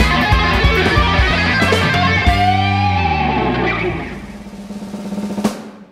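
Overdriven electric guitar, a Fender Stratocaster through the Mooer Micro Preamp 015 Brown Sound high-gain preamp, plays a busy lead over drums and bass. About two seconds in it settles on one held note with slight vibrato as the drums and bass drop out, and the sound fades, with a single sharp click near the end.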